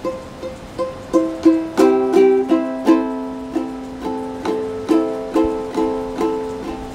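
Solo ukulele picked note by note at an even pace of about three notes a second, each note ringing and fading over a held low note.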